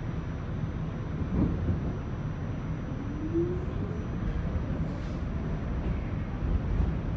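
R46 subway car running on the rails, heard from inside the car: a steady low rumble, with a faint tone rising in pitch about three seconds in.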